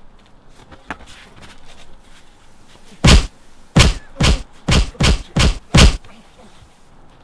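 Punch sound effects in a staged fight: seven heavy thudding hits in quick succession, beginning about three seconds in and speeding up to about two a second.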